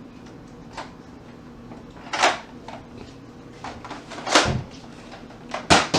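Sharp plastic clacks from spring-powered Nerf dart blasters being primed and fired: a faint one, then three loud ones about one and a half to two seconds apart.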